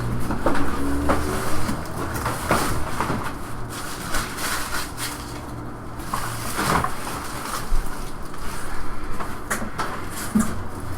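Trading cards and their packaging being handled: irregular rustles and light taps, over a steady low hum.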